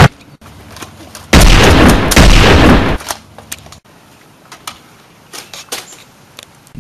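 A very loud burst of sound-effect gunfire, about a second and a half long with a brief break in the middle, followed by faint rustling and small clicks.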